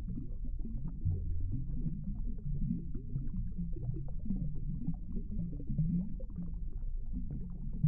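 Muffled, low underwater rumble picked up by a submerged camera, with indistinct wavering low tones and nothing above the low range.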